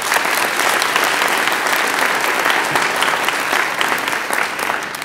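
Audience applauding: a dense, steady round of clapping that tails off near the end.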